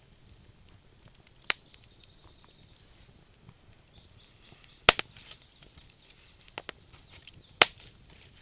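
Wood fire crackling in a fireplace: three loud, sharp pops and a few smaller snaps over a faint high hiss.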